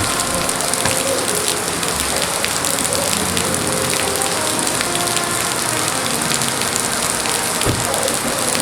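Steady rain falling on a car, loud and even.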